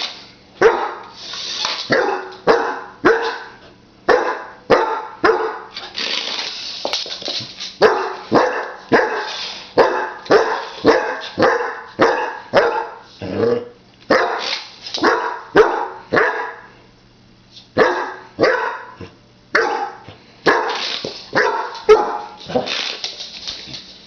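A 20-week-old puppy barking at a toy remote-control car: short sharp barks, about one or two a second, with a brief pause about two-thirds of the way through.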